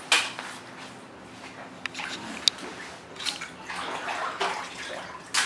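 Shallow bathtub water splashing in several short bursts as a child wades and moves his feet in it, with a sharp click about two and a half seconds in.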